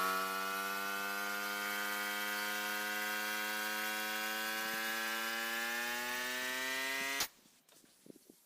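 Electric power tool motor running at steady speed, its pitch creeping slowly upward, then switched off abruptly about seven seconds in.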